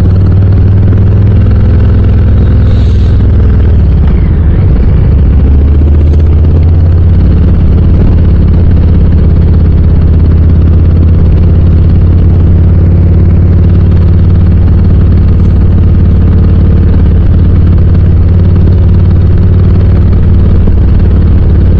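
Harley-Davidson Low Rider S's Milwaukee-Eight 117 V-twin running loud and steady through Cobra RPT slip-on mufflers while riding. The engine note shifts briefly about five seconds in, then holds steady.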